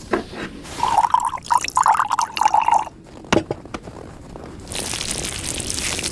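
Wet liquid sounds: a run of quick clicks and wavering gurgles for about two seconds, a single knock, then a steady hissing rush like pouring near the end.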